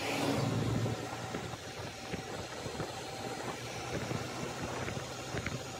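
Motorcycle riding along at about 45–50 km/h: steady engine hum mixed with wind and road noise, a little louder for about the first second.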